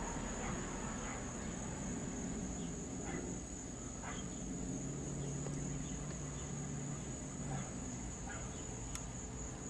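Quiet background inside a car: a steady high-pitched whine, with a faint low hum for a few seconds midway.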